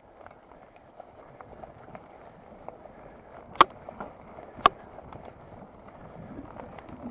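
Mountain bike rolling fast down a dirt and gravel trail: tyres crunching, with light rattling ticks from the bike and two sharp knocks about a second apart midway through.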